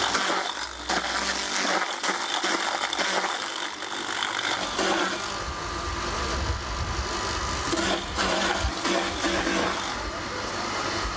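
Apple mill grinding apples into pulp: a steady mechanical grinding noise, with a deeper rumble coming in about halfway through.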